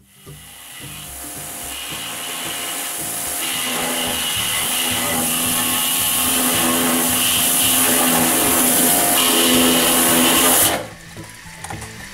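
Pressure washer blasting a water jet into a Weber kettle grill's steel bowl to clean out old residue. It makes a loud hiss over a steady motor whine, grows louder over the first few seconds, and cuts off sharply near the end as the spraying stops.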